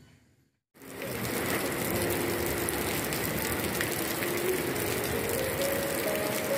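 Heavy rain pouring onto a wet paved terrace: a dense, steady hiss dotted with many small drop impacts, starting suddenly about a second in.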